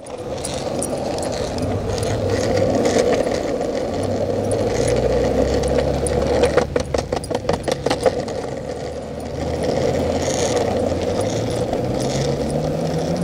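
Steady rolling noise of a ride along pavement beside a running husky, with low engine hum from traffic. A short run of rattling clatter comes about seven seconds in, and a car engine rises in pitch near the end.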